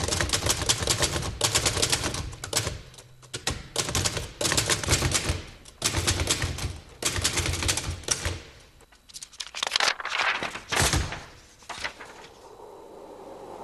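Manual typewriter being typed on: rapid bursts of keystrokes with short pauses between them, stopping about eleven seconds in.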